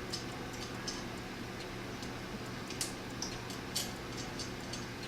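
Scattered light metallic clicks and ticks of small screws, printer parts and a hex key being handled during assembly, about eight in all with the sharpest near the middle, over a steady low hum.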